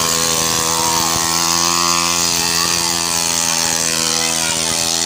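Small grass-cutter engine powering a homemade bicycle motorbike, running steadily at an even pitch as the bike pulls away.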